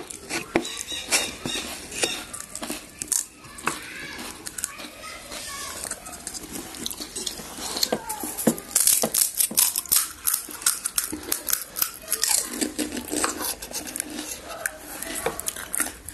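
Panipuri being eaten: crisp puri shells cracking and crunching, mixed with clinks of cutlery and dishes. The sharp cracks and clicks come thicker in the second half.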